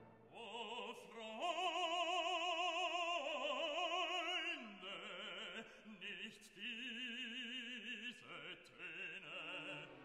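Background opera music: a singer holds long notes with wide vibrato, changing pitch a few times.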